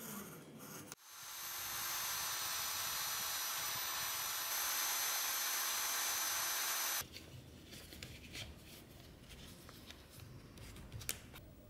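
Power tool spinning a grooved wooden edge burnisher against the stitched edge of a leather sheath, burnishing it. The motor spins up about a second in, runs steadily with a high whine, and stops abruptly some six seconds later. Quieter handling of the leather follows.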